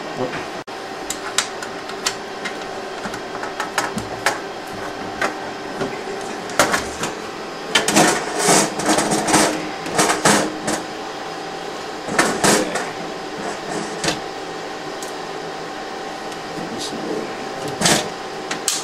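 Clicks and clattering of hardware being handled and fitted inside a Plasmon D Series optical library during installation, over a steady machine hum. The clatter comes in bunches about 8 to 10 seconds in and again around 12 seconds.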